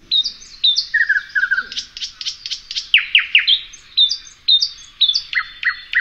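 Recording of a nightingale singing, played back. A varied song of repeated high whistled notes, rapid downward-sweeping strokes and short trills, in quick phrases with brief gaps.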